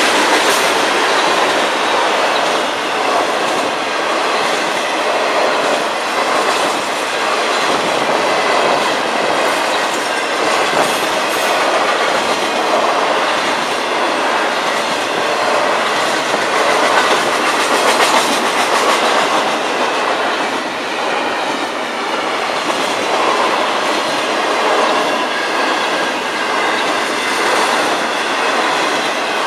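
Florida East Coast freight train's cars rolling past: a loud, steady rumble and rattle of steel wheels clicking over the rail joints as hoppers and intermodal container cars go by.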